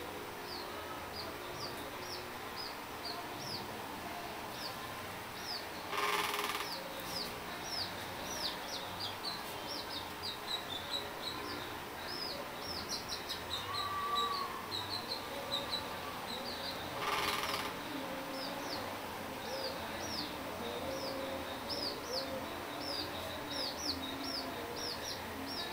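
Small birds chirping again and again: short, high, falling chirps, often one or two a second, sometimes in quick runs. Two brief bursts of rushing noise come about six and seventeen seconds in.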